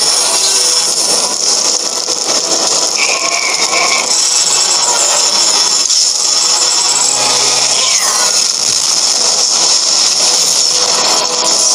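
Loud film sound effects of sparks and fire: a continuous harsh hissing and rattling noise, with a short high tone about three seconds in and a falling sweep about eight seconds in.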